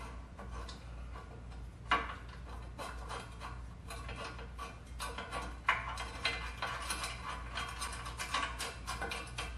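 Irregular metal clicks, taps and scraping as an exhaust clamp is worked by hand around a pipe joint, with two sharper clanks, one about two seconds in and one near the middle.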